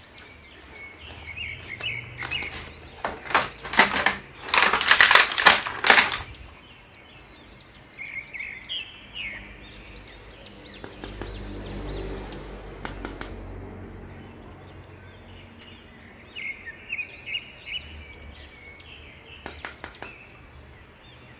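Plastic action figures being handled over a clear plastic blister tray: scattered clicks and crinkles, densest between about three and six seconds in, with birds chirping in the background.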